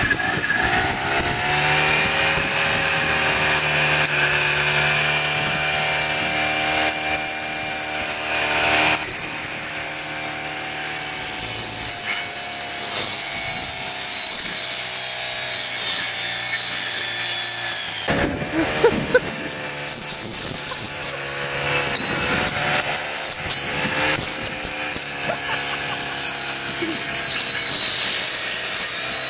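Honda four-stroke trimmer with a saw blade running at high revs while it cuts up a plush talking toy bear. The engine revs up right at the start, holds high with a high blade whine, dips briefly about two-thirds of the way through, then climbs again.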